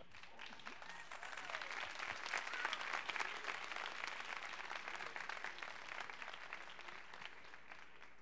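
A congregation applauding, quietly. It swells over the first couple of seconds, then slowly dies away.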